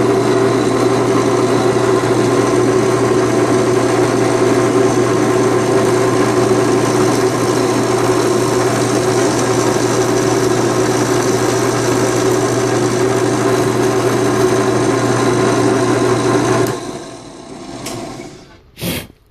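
A small electric cutting machine running at a steady, even pitch while it notches a plastic C13 power plug. It is switched off about 17 seconds in and spins down, and two sharp clicks follow near the end.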